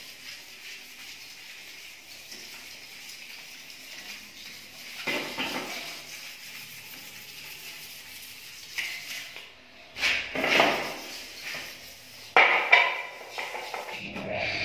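Hand sanding of a Honda CG 125 motorcycle's steel mudguard, a faint steady rubbing with a few louder scrapes and clanks of the metal being handled. Near the end a bench polishing motor runs steadily.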